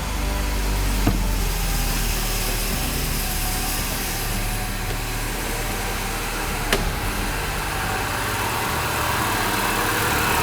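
Citroën C4 THP's 1.6 turbocharged four-cylinder engine idling steadily just after a push-button start, with two short clicks. It runs without timing-chain rattle now that the chain noise has been repaired.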